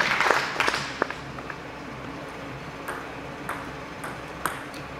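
Applause dying away in the first second, then a few sharp, irregularly spaced clicks of a celluloid table tennis ball bouncing as the players get ready for the next point.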